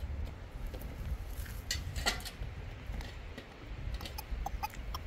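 A steady low rumble with a few sharp clicks about two seconds in and several short, high calls near the end.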